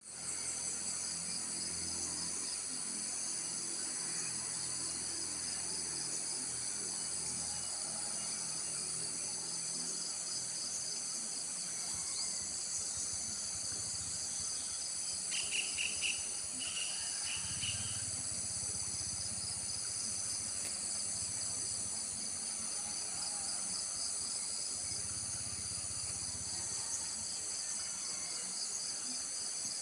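Steady, high-pitched chorus of insects, several overlapping trilling tones with a fine pulse. About halfway through, a bird gives a short run of chirps.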